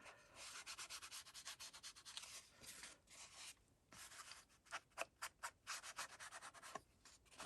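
Faint, quick rubbing strokes on the edge of a sheet of white paper, dirtying it to darken and frame its edges. The strokes come in fast runs with a short pause a little past halfway.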